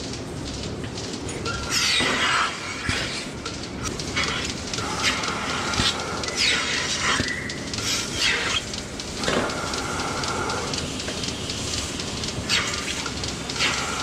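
Milking-parlour equipment at work as milking units are put on cows' udders. Several hissing gusts come as air is drawn into the teat cups, mixed with clicks and clanks of the units and the stalls.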